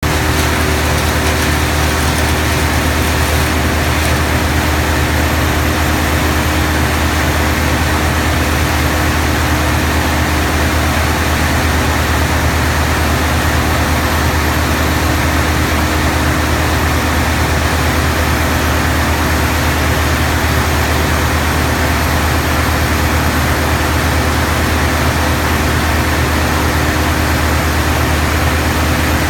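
Heavy engine of tree-removal machinery running steadily at a constant speed, with a strong low hum and no revving or cutting bursts.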